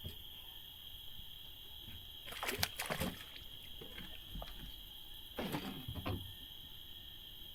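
Two short bursts of splashing about three seconds apart, a hooked bass thrashing at the surface as it is brought to the boat, over a steady high-pitched drone of night insects.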